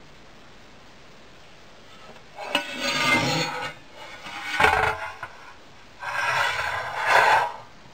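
Stainless steel carving tray being handled and shifted: metal rubbing and scraping in several noisy stretches, with a sharp clunk about halfway through.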